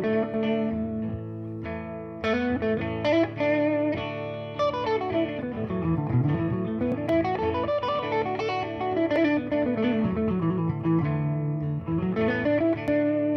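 Semi-hollow electric guitar playing the D major pentatonic scale as single notes, running down the neck, back up, and down and up again over steady held lower notes.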